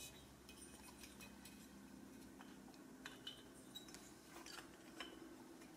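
Near silence with a few faint, scattered metal clicks as the cylinder of a Honda MR50's two-stroke engine is eased down over the piston and onto its studs.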